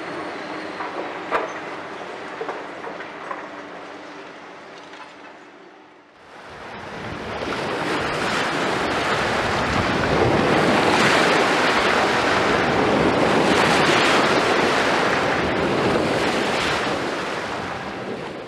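Hitachi 210 excavator's diesel engine running, with a few sharp knocks, fading out over about six seconds. Then a loud, even rushing noise swells up and holds until a fade at the very end.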